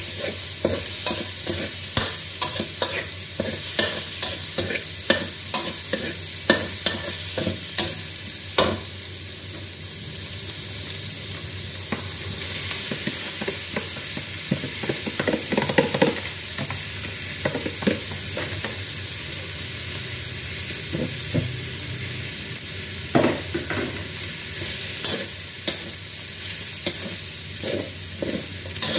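Metal spatula scraping and knocking against an aluminium wok while shrimp and cooked rice are stir-fried, over a steady sizzle of frying. The strokes come as sharp clicks, fewer for a few seconds about a third of the way in.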